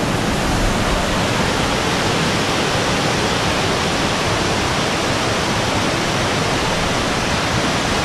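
Loud, steady rush of river water pouring over a rock slab at the lip of a waterfall.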